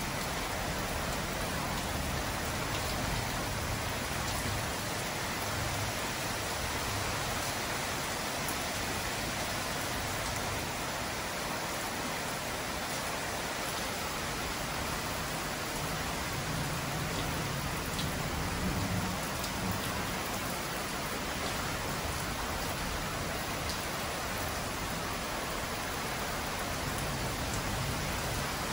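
Heavy rain pouring steadily: an even, unbroken hiss of drops falling on the patio tiles and the lawn.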